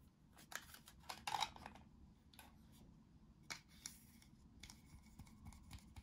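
Faint clicks and crackly rustling of plastic toy vegetables being handled by fingers, with a denser burst of crackling about a second in, then scattered single clicks.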